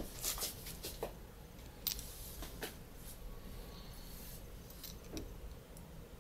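Faint clicks and light scrapes of small metal parts being handled as the metal chassis of a Sony DSC-QX10 lens-style camera is taken apart by hand. Several sharp clicks come in the first three seconds, with a brief scrape about two seconds in and another near four seconds.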